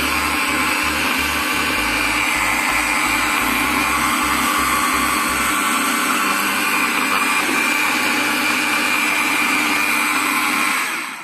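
Dnipro-M electric polisher running steadily with a yellow foam pad and polishing paste against an alloy wheel, with a low pulsing of about two to three beats a second through the first half. The motor stops at the very end.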